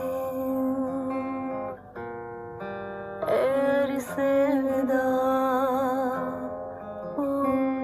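Song: a voice singing held notes that waver in pitch, over plucked acoustic guitar, with a short break about two seconds in.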